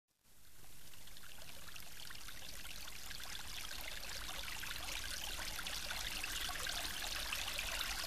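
Shiraito Falls, a wide curtain of many thin streams falling into a pool, making a steady rushing and splashing of water. It fades in at the start and grows slowly louder.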